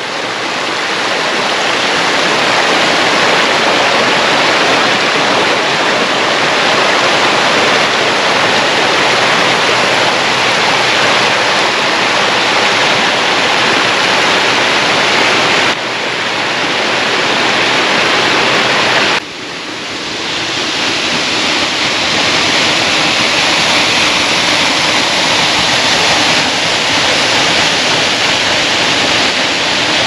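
The Gradašnica river rushing over rocks and small cascades, a loud, steady wash of water noise. The level shifts abruptly twice around the middle.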